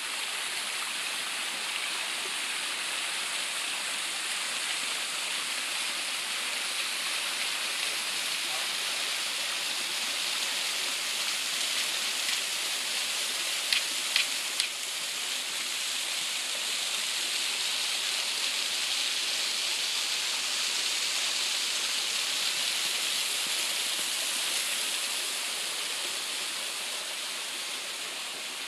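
Steady rushing of a small waterfall spilling over rock ledges, with three sharp clicks about halfway through.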